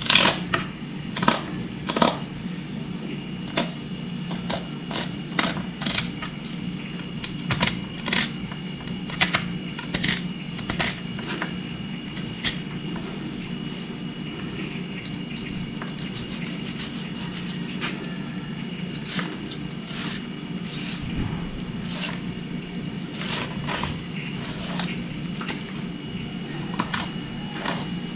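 Fillet knife cutting and scraping through a fish's skin, flesh and bones, with frequent irregular sharp clicks and crackles. A steady low hum runs underneath.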